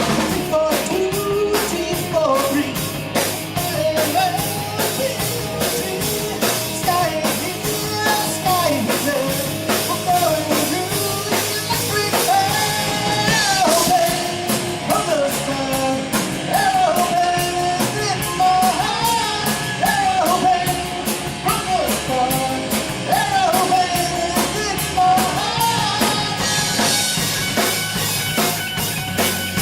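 A live rock band playing, with a steady driving drum kit beat under a bending, sliding lead melody.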